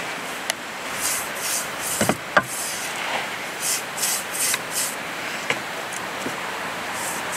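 Bristle brush swept back and forth along the wooden handles of a post hole digger, brushing on a liquid finish in quick runs of three or four scratchy strokes. A few sharp knocks, the loudest about two seconds in.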